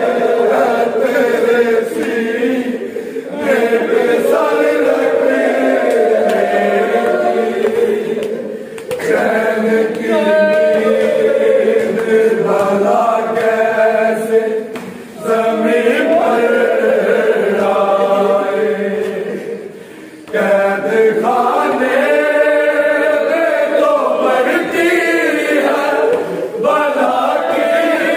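A group of men chanting a noha, the Shia lament, together in long sung phrases, each separated by a short pause about every five or six seconds.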